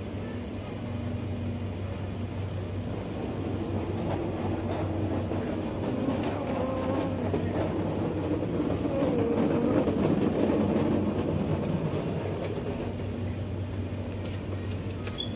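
Shop ambience: a steady low machine hum under an indistinct murmur. The murmur swells in the middle and eases off toward the end.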